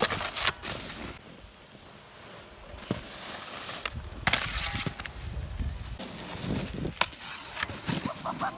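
Snowboard sliding and scraping across packed snow, with crunching and a few sharp knocks along the way.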